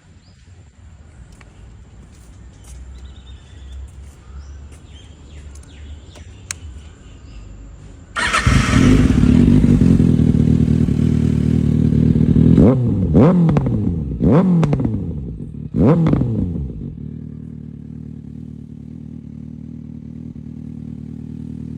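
Kawasaki inline-four sport bike engine through an SC-Project aftermarket exhaust: after a low rumble with a few clicks, the engine comes in loud about eight seconds in at a fast idle. It is then blipped four or five times, each rev rising sharply and falling away with backfire crackles on the overrun, before settling to a steady, lower idle.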